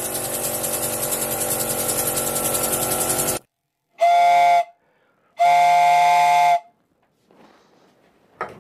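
Homemade twin-piston engine, converted from a two-stroke, running fast on 6-bar compressed air: a rapid, even chuffing with a hiss, which cuts off suddenly about three and a half seconds in. Then a handheld two-tube train-style whistle is blown by mouth twice, a short blast and then a longer one of just over a second, each sounding several tones at once.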